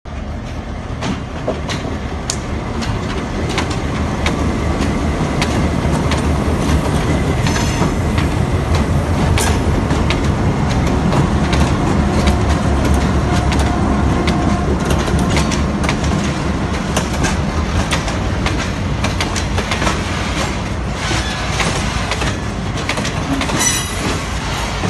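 A bauxite train passes close by: a diesel locomotive running as it goes past, then tank wagons, with a steady low rumble and wheels clicking over the rail joints. The sound builds over the first few seconds as the train comes near, and there is a brief thin squeal about halfway through.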